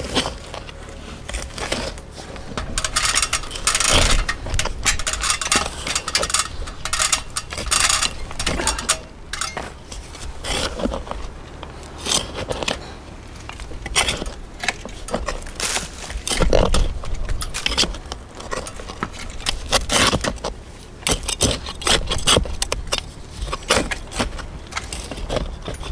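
Metal hand trowel digging a planting hole in stony soil: repeated irregular scrapes and gritty crunches, with clinks as the blade strikes small stones.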